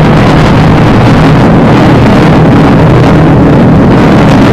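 Steady rumble of a high-rise tower block collapsing in a controlled explosive demolition, so loud that the recording is overloaded.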